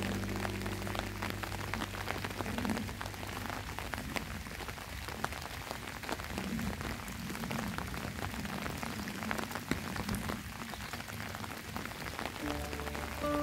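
Steady rain falling, with many individual drops ticking. Background music fades out in the first couple of seconds and comes back near the end.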